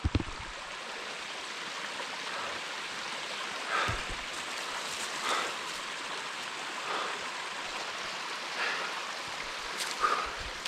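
Steady rushing of a rain-swollen mountain brook running down over a bare rock slab. A short soft sound from the climber comes about every second and a half.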